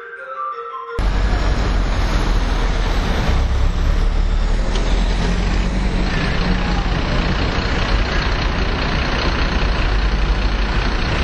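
A second of background music with mallet notes, then a sudden cut to loud, steady street noise: a low rumble of road traffic and vehicle engines.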